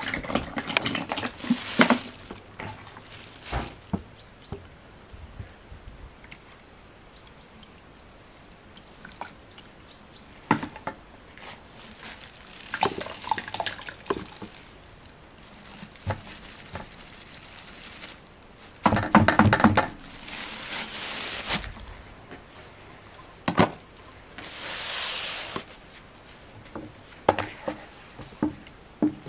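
Olive oil poured from a plastic bottle into a plastic bucket of lye solution for cold-process soap, heard as separate spells of pouring and dripping. About two-thirds of the way through comes the loudest spell, with a brief pitched sound in it.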